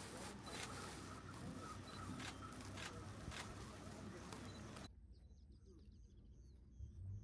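Faint outdoor bush ambience: a steady hiss and low rumble with scattered sharp clicks. It cuts off suddenly about five seconds in, giving way to a quieter background of birds chirping.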